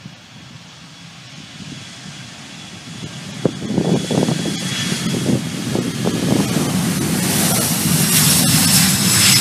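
Jet airliner's engines at takeoff power during its takeoff roll, a low rumble growing steadily louder, with a high hissing whine coming in strongly over the last couple of seconds as it draws closer.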